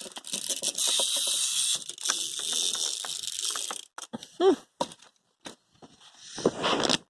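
Clockwork spring motor of a small wind-up toy running, a dense high-pitched buzz of gears that stops about four seconds in, followed by a few light clicks.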